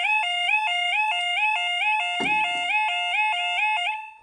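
Level crossing warning alarm sounding as the barriers lower: a loud electronic yodel that switches rapidly between two pitches. A dull thump comes about two seconds in. The alarm cuts off suddenly near the end as the barriers come fully down.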